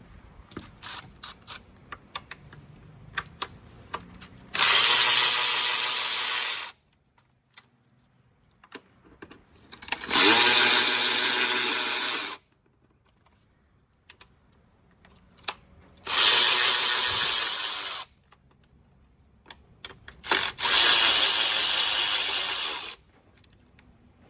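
Handheld power drill run four times, about two seconds each, starting and stopping abruptly, with light clicks and knocks of tool handling in between.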